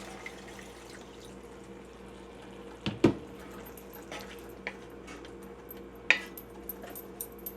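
Water being poured into a pan of ground pork in tomato sauce, over a steady low hum. A sharp knock comes about three seconds in, with a few lighter clinks afterwards.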